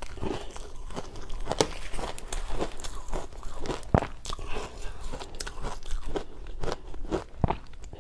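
Close-miked crunching and chewing of powdery ice dusted with matcha powder, a rapid run of sharp crisp crunches, with a metal spoon digging into the ice in the bowl.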